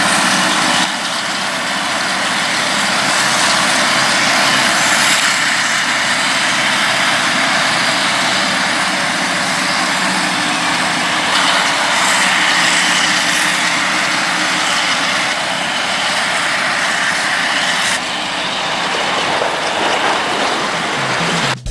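Self-propelled forage harvester running at work in maize: a loud, steady machine noise with a strong hiss. The level shifts abruptly about a second in and again near the end.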